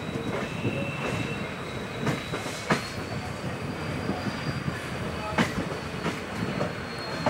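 Indian Railways passenger train running on the rails with a steady rumble of wheels. A thin, high wheel squeal holds throughout and rises slightly in pitch midway. A few sharp clacks come as the wheels cross rail joints.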